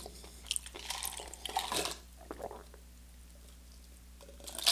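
Soft chewing and small mouth clicks, then a quiet stretch while drinking from a glass, with a brief loud hiss near the end.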